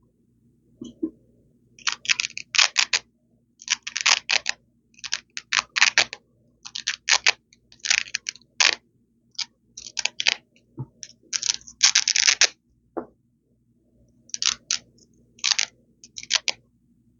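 Velcro hook-and-loop strips ripped apart close to the microphone: short, crunchy rasping rips in quick clusters, with a brief pause about three quarters of the way through.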